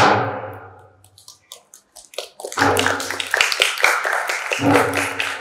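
A last drum beat rings out and fades. About two seconds in, a few scattered claps grow into steady audience applause, with a low thump near the end.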